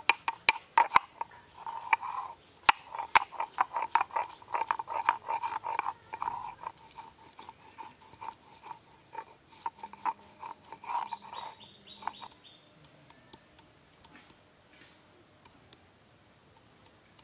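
Stone roller rocked back and forth over ginger on a flat grinding stone (shil-pata): a quick, rhythmic run of gritty stone-on-stone scrapes and knocks as the ginger is ground to paste. After about twelve seconds the strokes thin out into scattered, quieter knocks, as garlic slices are crushed with the same stone.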